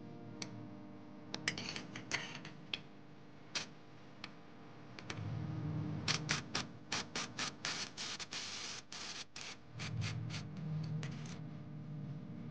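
Ratchet wrench clicking while bolts are loosened on a Jeep Wrangler JL's factory front driveshaft. A few scattered clicks come first, then a run of quick clicks from about the middle to near the end, at roughly four to five a second.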